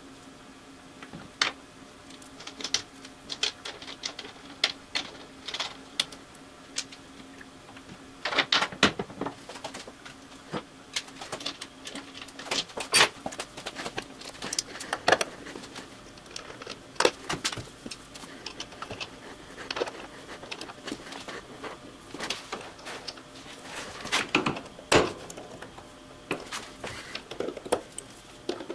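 Irregular small metal clicks, taps and clinks of steel throttle-linkage rods, rod ends and pliers being handled and fitted, over a faint steady hum.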